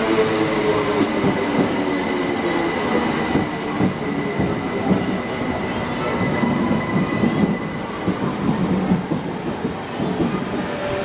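A train moving through a station: wheels running over the rails with irregular knocks and rumble, and a steady high whine that fades about seven seconds in.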